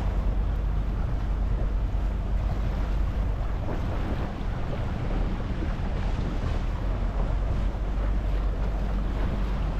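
A small tour boat's motor running steadily, low in pitch, under wind buffeting the microphone and sea water washing around the boat.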